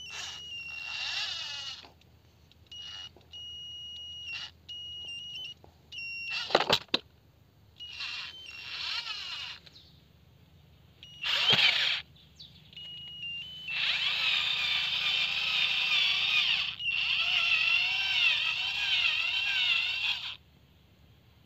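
Small electric gear motor of a toy RC tractor whining in stop-start bursts as it drives, with a steady high electronic whine over wavering gear noise. Two sharp knocks come about six and eleven seconds in, and the longest run comes near the end.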